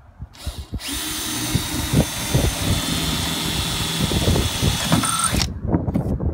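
A 20V cordless drill with a twist bit running steadily as it drills a small pilot hole into a boat's gunwale, a constant whine with the bit's cutting noise. It starts about a second in and stops abruptly about a second before the end.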